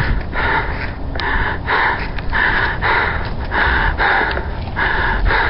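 A person breathing hard in quick, rhythmic gasps, about two breaths a second, with a low rumble of wind or handling noise on the microphone.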